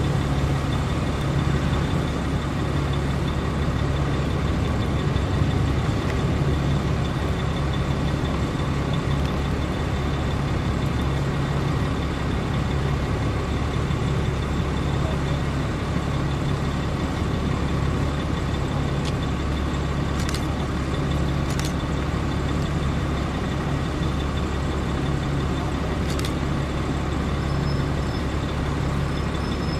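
Steady low drone of a large vehicle engine running close by, under the sound of cars passing slowly. A few faint clicks come in the second half.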